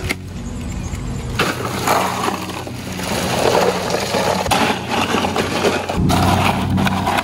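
Bagged ice cubes poured into a plastic cooler, rattling and sliding against its walls, loudest a few seconds in, with a few knocks as cubes and bottles hit the cooler. A steady low engine hum runs underneath.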